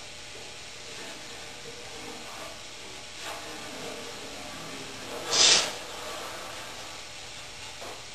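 A single short hiss, about half a second long, a little past the middle, over faint workshop background and small handling sounds.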